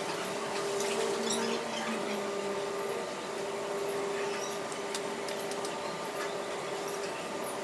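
A steady electrical-sounding hum with scattered light clicks over it.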